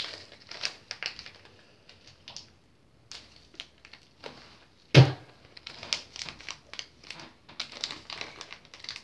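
Plastic packet crinkling and crackling as it is squeezed and worked in the hands, in short irregular bursts with a brief lull in the middle. A single loud thump about halfway through.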